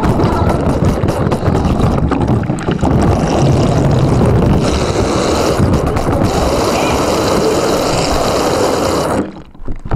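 Loud, muffled rumbling and rubbing picked up by a camera microphone sealed inside a waterproof case as the case is moved about; it cuts off suddenly near the end.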